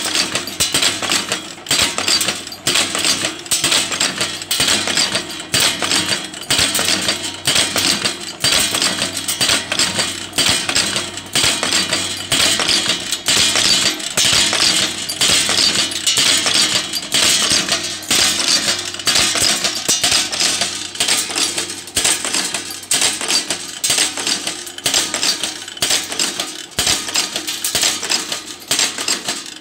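Wire hook-forming machine for conveyor-belt lacing hooks running, a fast continuous clatter of metal clicks and strikes over a steady low hum.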